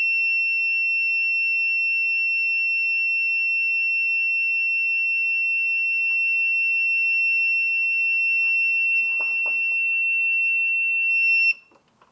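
ACDelco digital torque adapter giving one long, steady high-pitched beep while torque is applied to a threadlocked flash hider. This is its signal that the preset torque has been reached. The beep cuts off suddenly near the end.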